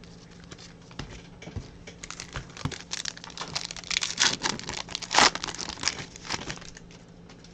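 Crinkling and rustling of a trading-card pack's plastic wrapper being handled and torn, a run of crackly rustles that starts about two seconds in and fades out near the end.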